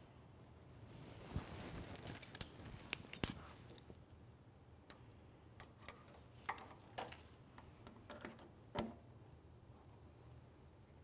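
Light metallic clicks and taps of a combination wrench and screwdriver working on a nut and bolt as the hardware is tightened, coming irregularly, the loudest about three seconds in and again just before nine seconds.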